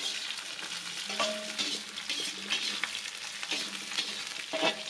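Sliced chillies, shallots and garlic sizzling in hot oil in a metal wok, with a metal spatula stirring them and scraping across the pan about once a second.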